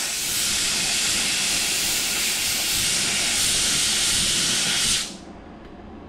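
Air-powered grinder grinding down a fresh weld in a filled door handle hole on sheet steel: a loud, steady hiss that cuts off about five seconds in.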